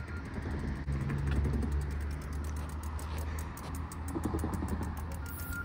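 Bicycle rear-hub freewheel ticking rapidly and evenly as the bike is walked along, over a steady low rumble.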